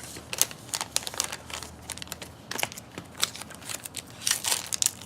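Trading-card pack wrapper crinkling and crackling in the hands in scattered sharp bursts as it is worked at to be torn open.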